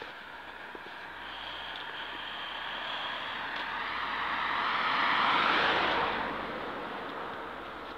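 A vehicle passing by: a steady rushing noise that grows louder to a peak about five seconds in, then fades away.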